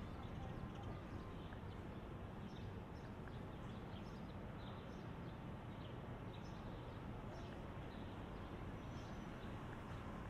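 City street ambience: a steady low hum of traffic and the city, with light, irregular footsteps clicking on the pavement.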